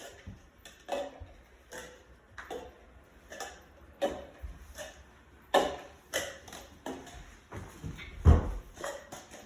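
Plastic cups being picked up and set back down on a tabletop: a series of light clacks, about one or two a second, with a louder thump about eight seconds in.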